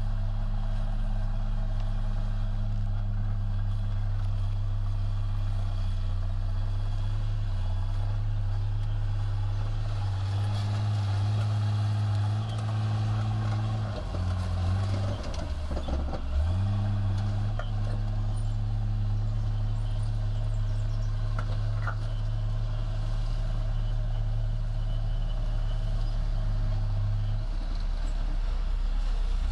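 Bulldozer's diesel engine running steadily. About halfway through its pitch drops and falters for a couple of seconds, then climbs back, and it dips briefly once more near the end, as the engine's speed falls and recovers under changing load.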